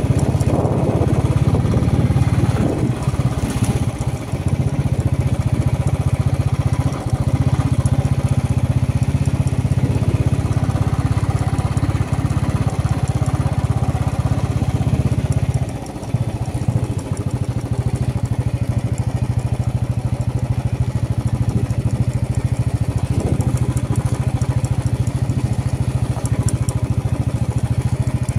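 Steady low drone of a small engine running on a slowly moving vehicle, with a brief dip about sixteen seconds in.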